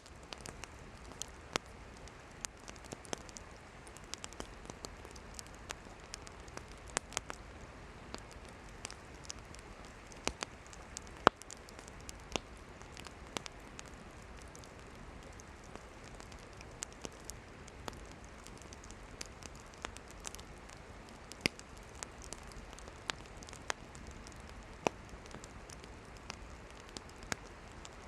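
Campfire of burning wood crackling: irregular sharp pops and snaps over a soft steady hiss, one louder pop about eleven seconds in.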